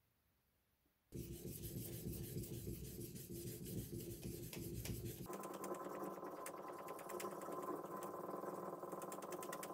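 A deba knife blade is scraped rapidly back and forth across a wet ceramic #400 whetstone in sharpening strokes, starting about a second in. About halfway through a steady hum joins the scraping.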